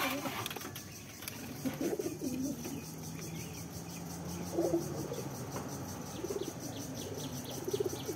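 Racing pigeons cooing: several low, wavering coos at intervals of a second or two, the loudest a little before the middle.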